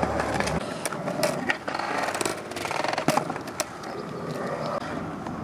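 Skateboard wheels rolling on concrete, with several sharp clacks of the board hitting the ground: about a second in, then twice around three seconds in.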